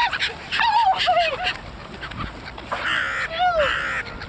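Waterfowl honking as they crowd round for food: a string of short, rising-and-falling honks, with a louder, harsher call about three seconds in.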